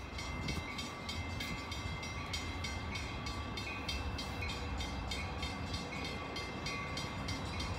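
An Amtrak shuttle train approaches with a steady low rumble. Over it sit a few steady high ringing tones and a quick, even ticking of about three or four a second.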